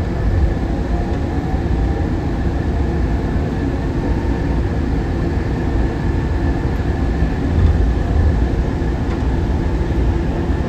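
Newark AirTrain monorail car running between stations, heard from inside the cabin: a steady low rumble with faint steady whining tones above it.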